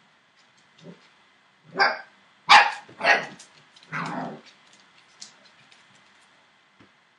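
Seven-week-old Entlebucher Mountain Dog puppies barking: four short barks in quick succession between about two and four seconds in, with scattered faint clicks around them.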